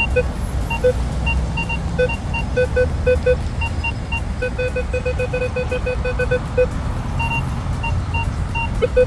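Metal detector giving short repeated beeps, in scattered groups with a quick run of about four beeps a second near the middle, over a steady low rumble. It is the target signal at tone 18, the tone that usually means a 50-centavo coin.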